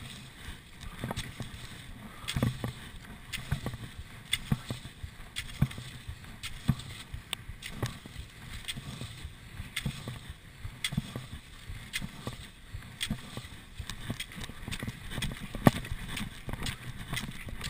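Classic cross-country skis swishing along set tracks in packed snow, with rhythmic pole plants and kicks clicking and thumping about twice a second.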